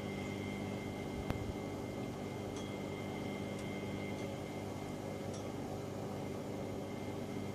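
Miele Gala W961 washing machine running at the start of its spin, the drum in its gentle soft-start ramp-up: a steady motor hum with a thin high whine, a sharp click about a second in and a few faint ticks.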